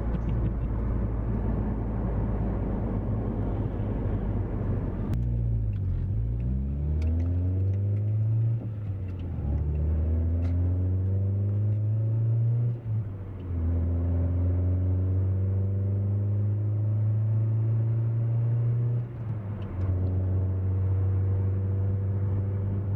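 Car engine heard from inside the cabin, at first a steady low rumble, then pulling away and accelerating through the gears, its pitch rising and falling back at about three gear changes before settling into a steady cruise.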